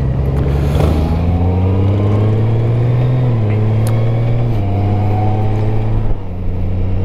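Honda Gold Wing's flat-six engine pulling away under acceleration. Its pitch climbs, then drops as it shifts up, twice, before settling into a steady cruise.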